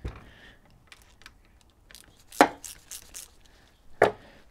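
Tools and a diesel injection pump being handled and set down on a wooden workbench: a dull thump at the start, a few light clicks, a sharp knock about two and a half seconds in and another near the end.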